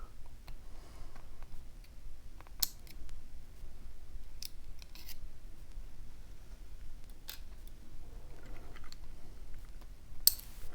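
A handful of small sharp clicks and taps, spread out with pauses between them, from tiny lock pins and springs being handled as a pin-tumbler lock is taken apart.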